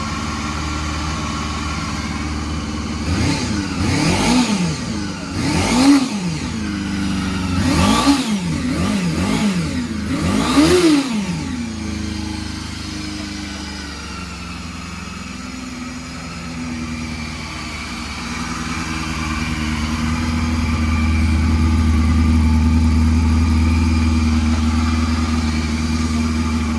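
Honda Hornet 250's inline four-cylinder engine idling, blipped quickly about six times a few seconds in, then settling back to a steady idle. It runs without abnormal engine noise, as the seller states.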